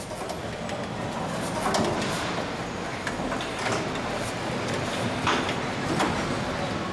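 Car assembly hall ambience: a steady machine hum and hiss with a few sharp knocks and clicks of handling equipment as a cockpit module is fitted into a car body.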